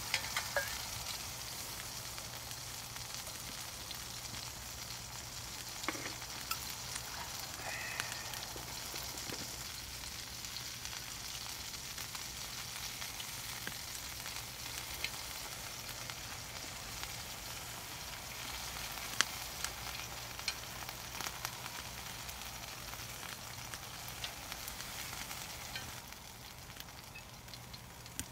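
Food sizzling and frying in a pan, a steady hiss with scattered pops and crackles; the sizzle eases slightly about two seconds before the end.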